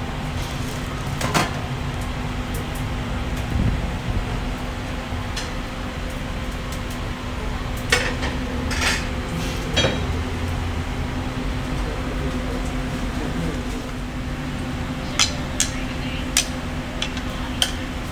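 Metal tongs clinking now and then against stainless steel trays and counter as shawarma wraps are filled, over a steady mechanical hum.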